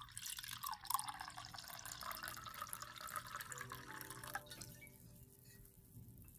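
White wine poured into a wine glass, splashing and gurgling, stopping about four and a half seconds in.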